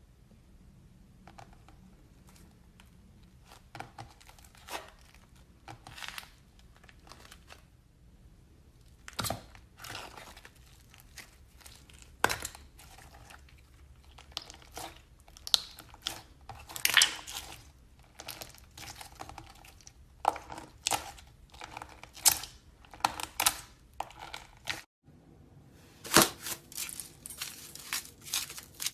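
Slime being squeezed and pressed, its trapped air bubbles popping and crackling in irregular clusters of small pops that come thicker after about nine seconds, with a short break near the end.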